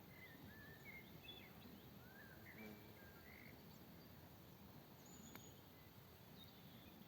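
Faint outdoor ambience with a bird's short chirps and whistles, several in the first three seconds and one higher note a little after five seconds, and a single faint click.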